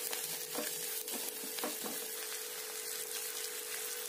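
Sliced onions, curry leaves and asafoetida sizzling in hot oil in a kadai while a wooden spatula stirs and scrapes them, with a few light knocks of the spatula in the first two seconds. A faint steady hum runs underneath.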